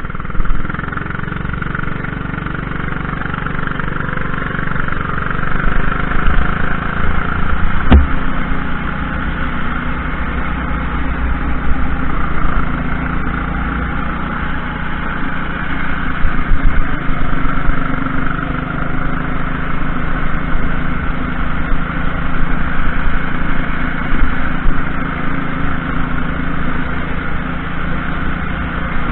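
A junior racing kart's engine running at speed, heard from a camera mounted on the kart. A single sharp knock comes about eight seconds in.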